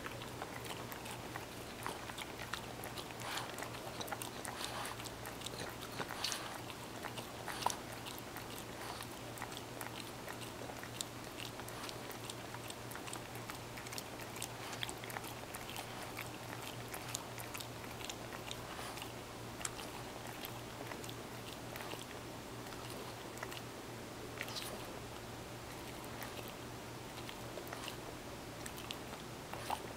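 French bulldog licking and smacking its lips to work cream cheese off its muzzle: a steady run of small wet clicks and smacks.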